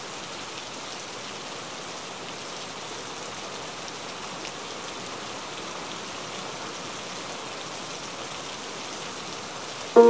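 Steady, even hiss with faint scattered ticks. Right at the end a piano comes in suddenly and much louder.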